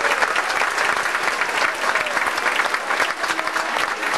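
Audience applauding: many hands clapping together at a steady, even level.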